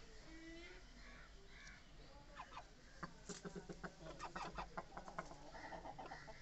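Chickens clucking: a quick, irregular run of short clucks for about three seconds in the middle, with fainter calls before it.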